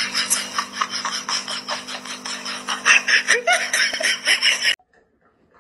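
A person laughing hard in quick repeated bursts over a faint steady hum, cutting off abruptly near the end.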